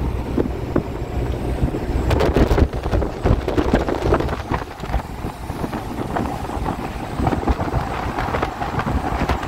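Truck driving on an open road, heard from inside the cab: a steady rumble of engine and road noise, with wind buffeting the microphone.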